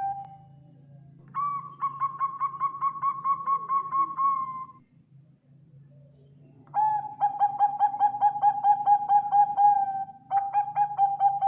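Zebra dove (Bangkok perkutut) cooing: three long phrases of fast pulsing coo notes, several a second, the first phrase slightly higher in pitch than the other two, with a faint steady low hum underneath.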